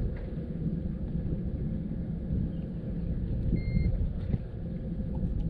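Wind buffeting the microphone on an open boat deck, a steady, uneven low rumble. A short high electronic beep sounds about three and a half seconds in.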